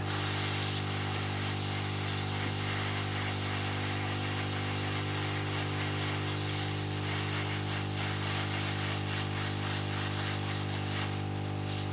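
Hot air rework station blowing steadily while reflowing solder paste under surface-mount LEDs. Its fan motor gives a steady hum under a hiss of air from the nozzle.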